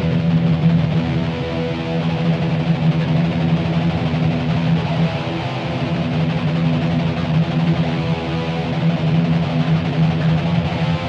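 ESP LTD H-401QM electric guitar with DiMarzio Titan pickups, played through a Boss ME-80 with delay, holding sustained notes and chords that ring steadily.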